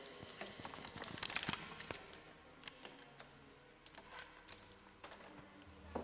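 Dry coca leaves handled and cast by hand onto a tabletop for a coca-leaf reading: soft rustles and scattered light ticks, many small ones at an uneven pace.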